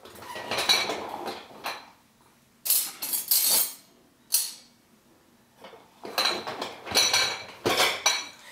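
Metal clinking and rattling of a disc-detainer pick and tensioner against a small steel padlock as they are handled and repositioned, in several short bursts with pauses between.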